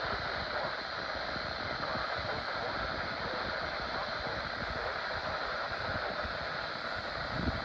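Steady hiss of static from a NOAA weather radio receiver.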